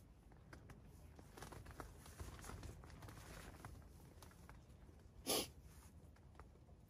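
Quiet tent interior with a low rumble and faint rustles and clicks, broken by a single short, sharp sniff a little after five seconds in.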